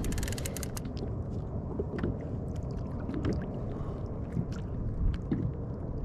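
Muffled water sloshing and gurgling heard from inside a GoPro's waterproof housing as it dangles at the surface, dipping under and coming back out, with scattered small ticks and splashes.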